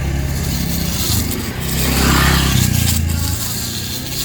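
Motor of a battery-powered, modified grass-cutting machine running with a steady low hum, a rush of noise swelling around two seconds in; the hum drops away about three and a half seconds in.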